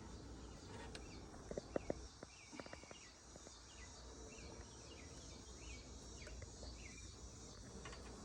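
Faint outdoor ambience with a small bird chirping over and over in short, quick notes. A few sharp clicks about two seconds in are the loudest sounds.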